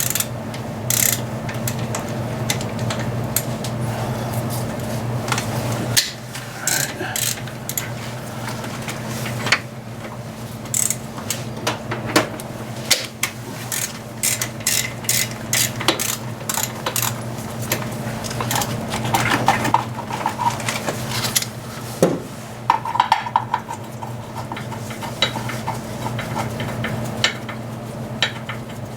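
Metal hand tools clinking and clicking against bolts and engine metal while bolts are worked loose, in many irregular clinks over a steady low hum.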